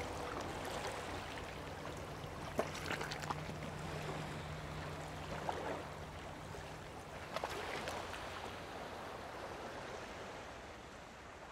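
Water lapping and splashing, with a few short splashy clicks and a steady low hum that stops about seven seconds in. The whole sound slowly fades out toward the end.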